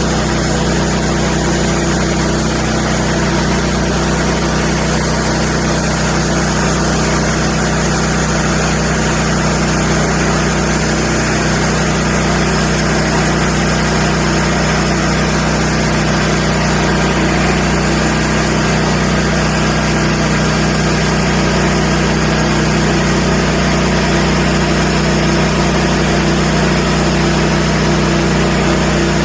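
Engine running steadily at one constant speed, an even low hum with no change.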